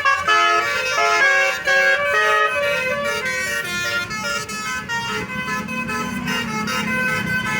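Tour bus's Basuri 'telolet' multi-tone musical air horn playing a quick tune of stepped notes. The notes come fast at first and grow sparser after about three seconds, over a low steady hum.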